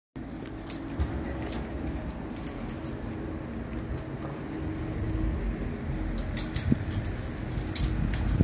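Outdoor street ambience: a steady low rumble, with scattered light clicks and taps throughout.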